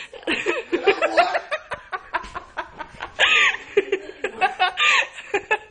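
People laughing and snickering in quick bursts, with several high-pitched squeals, the clearest about three seconds in and again near the end.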